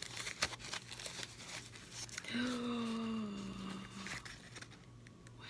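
Packaging crinkling and tearing as the crystal is unwrapped by hand. About two seconds in, a woman gives a single drawn-out, slightly falling vocal exclamation lasting almost two seconds, and a little crinkling follows.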